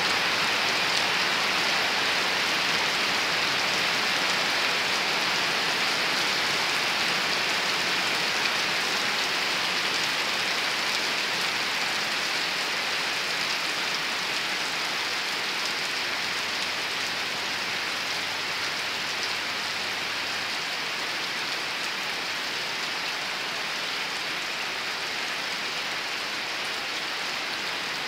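Steady rain falling on garden trees, leaves and grass, a continuous even hiss that eases slightly in the second half.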